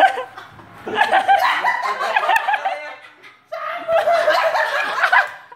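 Young men laughing hard in two long stretches, with a short break about three and a half seconds in.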